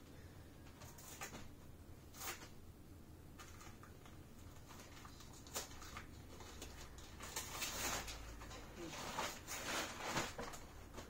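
Wrapping paper and packaging rustling and tearing as a gift is unwrapped, in scattered short bursts that come thicker and louder over the last few seconds.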